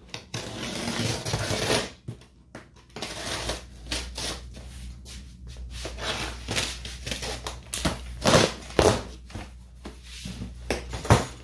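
Packing tape ripped off a cardboard box in one long tear lasting about two seconds, then cardboard flaps and packaging crackling and rustling with scattered knocks as the box is pulled open.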